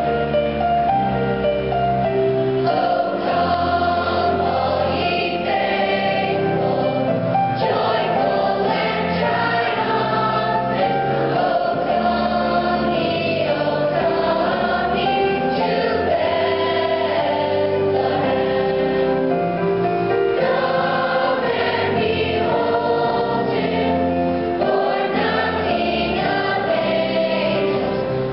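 Children's choir singing in unison over low held bass notes that change every second or two.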